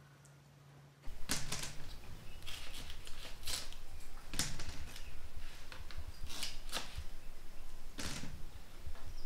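A knife peeling the skin off green bananas: crisp scraping and cutting strokes at an uneven pace, starting about a second in after a faint low hum.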